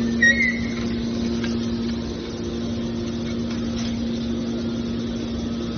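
Metal baler's hydraulic power unit running with a steady hum, with a brief high squeal about a quarter of a second in.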